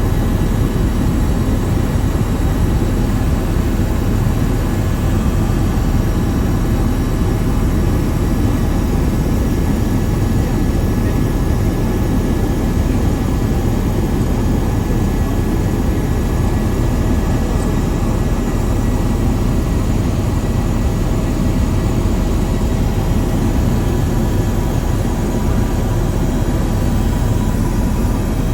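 An aircraft in flight: a steady, loud engine and wind rumble with a few faint steady tones over it.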